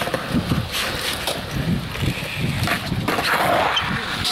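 Skateboard wheels rolling on concrete and a failed alpha flip attempt: the board clacks and scrapes on the pavement and the skater falls, a louder scraping stretch coming about three seconds in. Wind buffets the microphone throughout.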